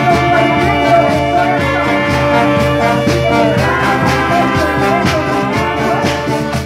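Marching band playing a tune: saxophones, trombones, trumpets and a sousaphone over snare drums keeping a steady beat.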